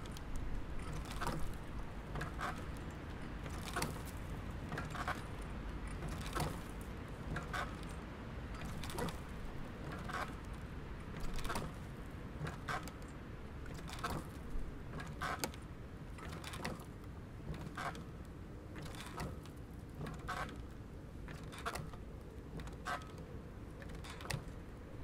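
Playground swing in use, its chains and hangers squeaking and clinking in a steady rhythm, about once every second and a quarter, over a low steady background rumble.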